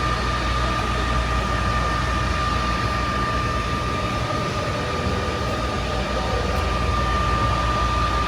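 Steady machine noise at an indoor electric go-kart track: a constant low hum with a steady high-pitched whine over it, unchanging throughout.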